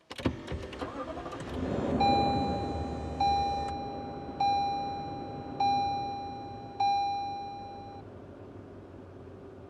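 Luxury car heard from inside the cabin: starter cranking with a few clicks, then the engine catching and rising about two seconds in before settling to idle. Over it, the car's warning chime dings five times, about a second apart, each ding fading.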